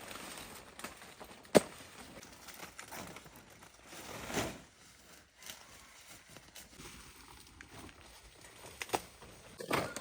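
Scattered handling noises over a faint steady hiss: a sharp knock, a brief rustle a few seconds later, and two clicks near the end.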